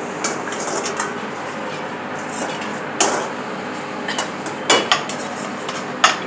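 Metal ladle scraping and clanking against a wok during stir-frying, as a series of sharp strikes over a steady hiss.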